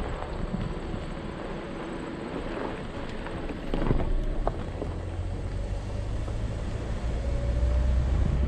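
Vehicle driving along a gravel road: a steady engine and tyre rumble mixed with wind on the microphone, getting louder from about four seconds in.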